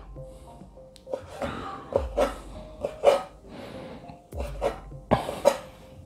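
A kitchen knife slicing fresh squid on a wooden cutting board: a string of short, irregular knocks as the blade hits the board, some with a dull thud.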